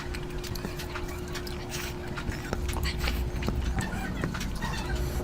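Close-miked chewing and mouth sounds of a person eating curry: a run of wet clicks and smacks, over a steady low hum.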